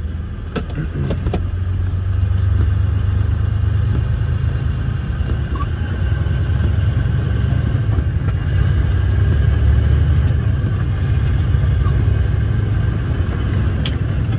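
Diesel engine of a loaded off-highway logging truck running steadily, heard from inside the cab as a low rumble that grows louder about two seconds in. A few sharp clicks sound near the start and once near the end.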